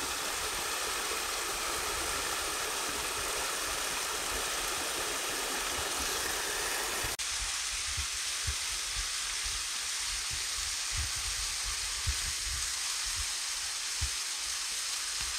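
Steady rushing of a small forest waterfall. About seven seconds in the sound changes abruptly and turns thinner, and a few soft low thumps are heard after that.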